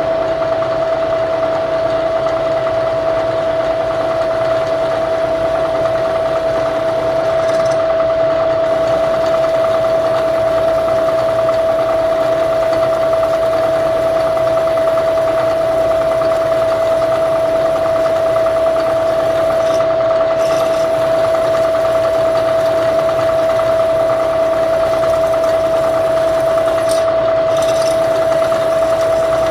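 Milling machine spindle running steadily with a constant high whine while a drill bit bores a hole through a bracket.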